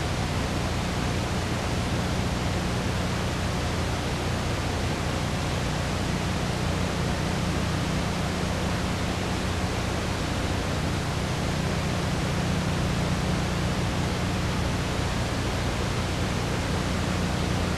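Steady hiss with a low hum underneath, unchanging throughout: recording noise with nothing else standing out.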